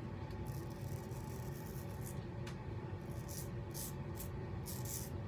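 Short scraping strokes of an adjustable double-edge safety razor cutting through lathered stubble on the neck, about two a second, with a steady low hum underneath.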